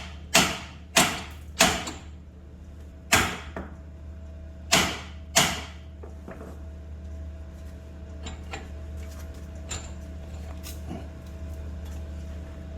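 A hammer striking metal six times in the first five and a half seconds, each blow sharp and ringing briefly, as a part is tapped into place on the front axle and spindle; a few light metal clicks follow.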